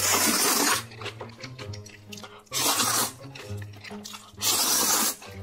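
A man slurping spicy noodles with chopsticks, three long loud slurps about two seconds apart, over background music.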